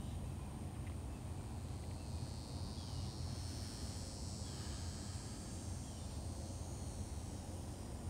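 Open-field summer ambience: insects trilling in the grass, swelling for a few seconds midway, with a few short faint bird chirps over a steady low rumble.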